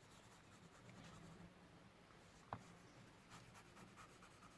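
Near silence with faint scratching of a drawing tool on paper and a single light tap about two and a half seconds in.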